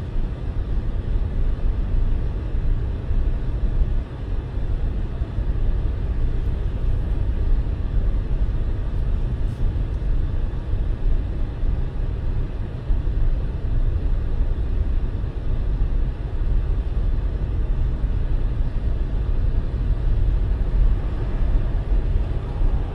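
Steady low road and engine rumble of a car being driven.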